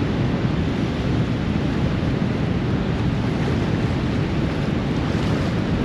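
Steady rush of water pouring through a dam's open spillway gates and churning in the tailwater, with wind buffeting the microphone.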